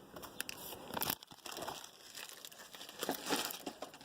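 Trading-card pack wrappers being torn open and crumpled, an irregular crinkling with louder tearing about a second in and again around three seconds in.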